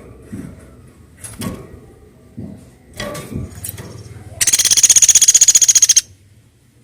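Woodpecker (platok) giving a loud, fast rattling trill for about a second and a half, starting a little past the middle. It is preceded by a few scattered knocks and rustles.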